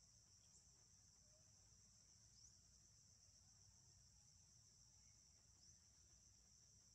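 Faint insect chorus: a steady, unbroken high-pitched drone over a low background rumble.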